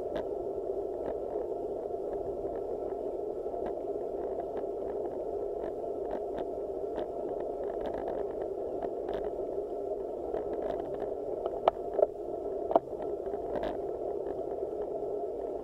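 Steady, muffled rumble of a road bike riding slowly uphill, picked up by a camera mounted on the handlebars, with scattered faint ticks and three sharp clicks about three-quarters of the way through.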